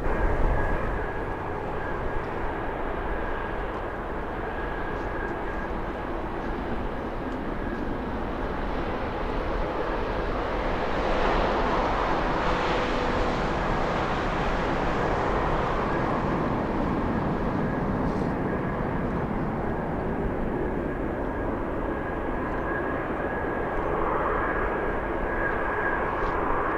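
Jet airliner engines running during takeoff: a steady rushing noise with a thin high whine that swells loudest about eleven seconds in.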